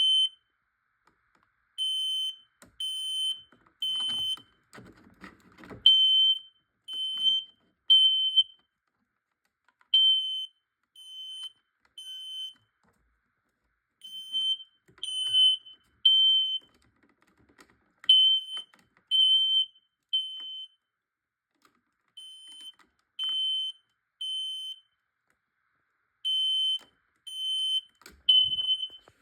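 Smoke alarm's horn sounding its evacuation pattern: three high beeps, a pause, then three again, repeating about every four seconds. It went off before any test smoke was sprayed at it. A brief rustle of handling noise comes about five seconds in.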